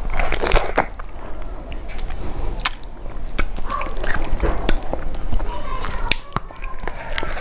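Close-miked eating: a bite into a piece of fish and chewing, with wet mouth sounds and many short sharp clicks, louder in the first second, then fingers tearing and squishing the sauce-coated fish.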